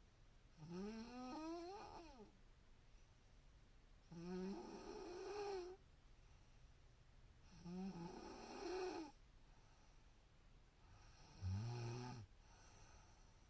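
A woman snoring in her sleep: four snores about three and a half seconds apart, each a second or two long, pitched and wavering, the last one deeper.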